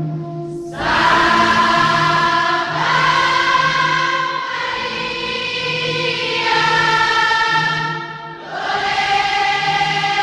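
Music with a choir singing long held chords that change about every two seconds, over a low repeating note.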